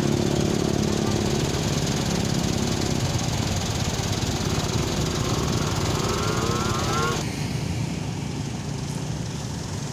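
Road traffic with a vehicle engine running close by, and an engine rising in pitch as it speeds up in the middle. Near the end it gives way to a quieter, even traffic noise.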